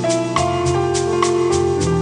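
Keyboard playing held jazz chords that shift every second or so, over a backing rhythm of light percussion clicks about twice a second.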